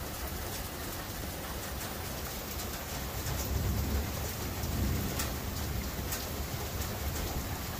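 Steady rain falling, with a few sharp ticks of drops striking close by. A low rumble of thunder swells from about three seconds in and eases off by about six.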